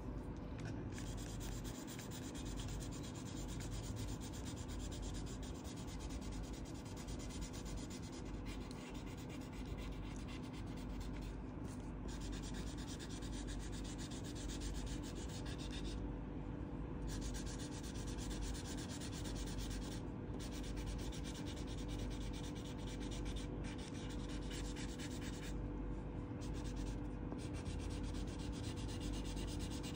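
A purple crayon rubbing on paper as an area is coloured in, near-continuous with a few short pauses, the longest about a second around the middle.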